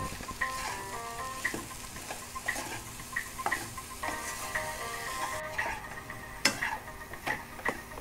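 Spatula stirring and scraping masala-coated baby potatoes around a nonstick kadai, with irregular knocks and scrapes about once a second over a sizzle.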